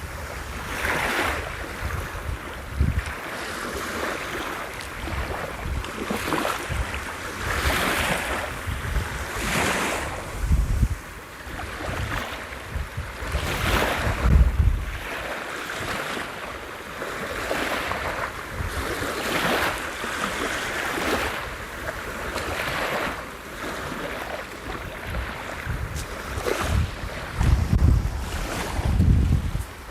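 Sea waves breaking and washing up the beach, swelling and fading every couple of seconds. Gusts of wind rumble on the microphone a few times, loudest about halfway through and near the end.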